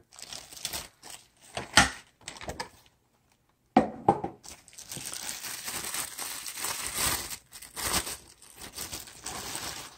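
Clear plastic bag wrapping a car speaker crinkling and crackling as it is handled and pulled at. There are sharp, irregular crackles for about three seconds, a short pause, then steadier crinkling with more crackles to the end.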